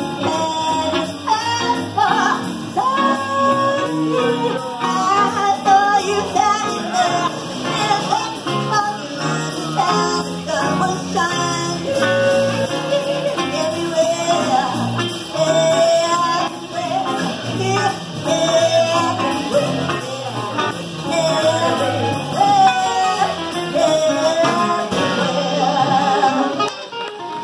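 Live band playing a song: a woman singing lead over acoustic guitar and plucked upright bass, with harmonica.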